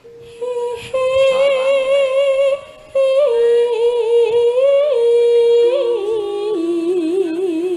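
A sinden, a Javanese female gamelan singer, singing solo into a microphone. She holds long high notes with ornamental slides between pitches, takes a short breath break about three seconds in, and ends on a low held note with a wide, wavering vibrato.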